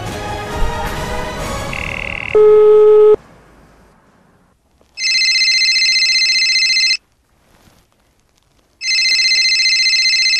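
Music ends on a loud held note about three seconds in. Then a telephone rings twice, each ring about two seconds long with a pause of about two seconds between them.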